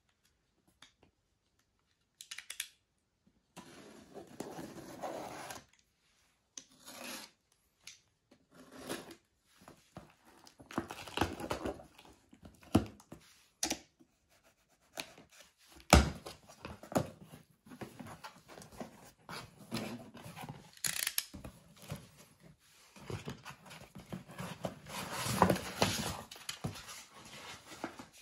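Utility knife slitting the packing tape on a cardboard box, then the tape tearing and the cardboard flaps being pulled open, in irregular scraping and rustling bursts with a few sharp knocks.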